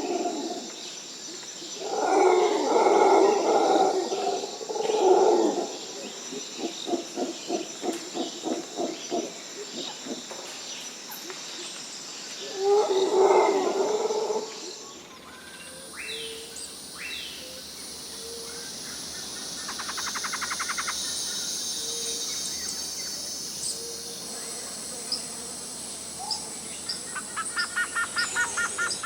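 Jungle ambience: a steady high drone of insects throughout, with loud animal calls in the first half, one of them a pulsed series of about three calls a second. About halfway through the recording changes, and the drone moves higher under short falling bird chirps and two rapid trills.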